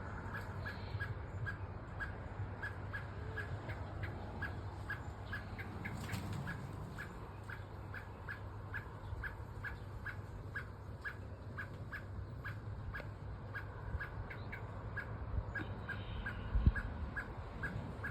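A bird calling over and over, a short high chirp repeated evenly about three times a second. Near the end there is a single dull thump.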